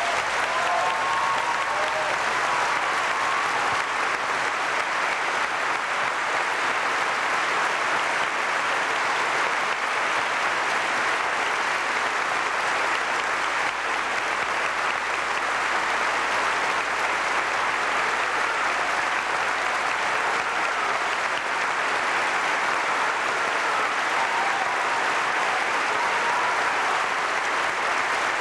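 Large audience applauding steadily and at full strength, sustained applause at the end of a speech.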